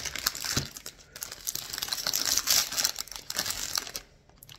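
Foil-lined plastic snack wrapper crinkling and tearing as it is pulled open by hand, in irregular crackly bursts that stop about four seconds in.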